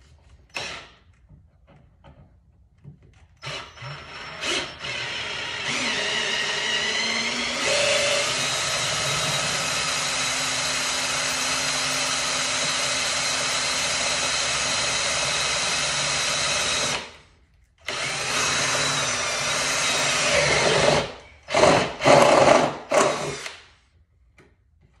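Cordless drill drilling into a car's sheet-metal body: a few short bursts, then a long steady run whose motor pitch rises at first, a brief stop, another run, and several short bursts near the end.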